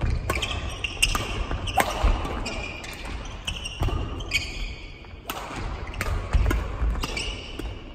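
Badminton doubles rally: a fast exchange of sharp racket-on-shuttlecock hits, roughly one or two a second, with short squeaks of court shoes on the wooden floor between them.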